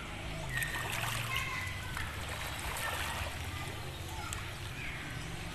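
Water lapping and splashing at the shoreline, with faint voices calling in the distance.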